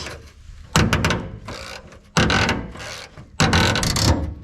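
Wrench working a crooked, binding 15 mm fuel-tank strap bolt loose on an old Chevy truck: three loud scraping strokes, about a second and a half apart, as the bolt grinds in its threads.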